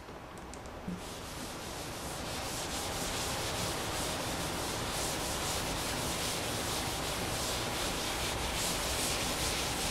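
Chalkboard duster rubbing across a chalkboard, erasing chalk writing in a steady scrubbing run that grows a little louder over the first few seconds. There is a light knock about a second in.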